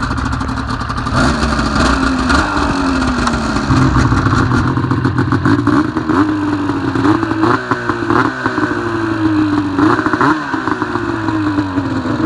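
Ski-Doo MXZ 500 snowmobile's two-stroke engine running and being blipped about seven times: each blip jumps the pitch up sharply, and it sinks slowly back toward idle.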